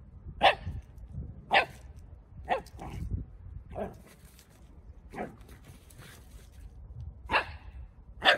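A Shiba Inu barking in play: about eight short, sharp barks spaced roughly a second apart, over a low rumble.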